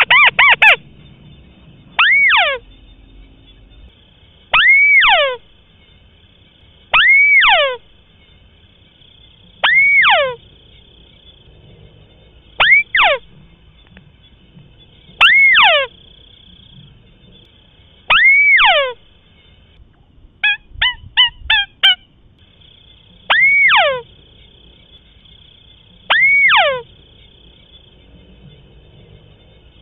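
White-browed crake calling: a loud note that slides steeply downward, usually given twice in quick succession, repeated every two to three seconds, with a quick run of short clipped notes about two-thirds of the way through.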